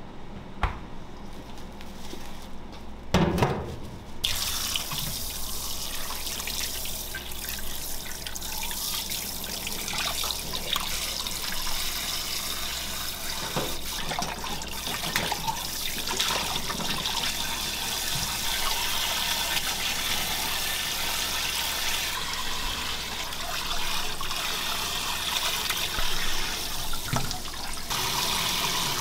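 A couple of knocks in the first few seconds, then a kitchen tap running steadily into a stainless-steel sink and a bowl of water while seafood is rinsed by hand.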